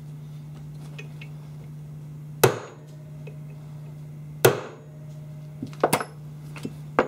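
Two sharp ball-peen hammer taps about two seconds apart on a steel punch, driving a taper pin into an AR-15 front sight block and barrel, the second leaving a short metallic ring; then a few lighter clicks, all over a steady low hum.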